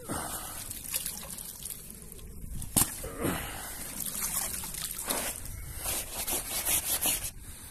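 Lake water sloshing and splashing around a wet fabric carp sling dipped into the shallows, with water dripping and trickling off it as it is lifted. A sharp knock sounds about three seconds in.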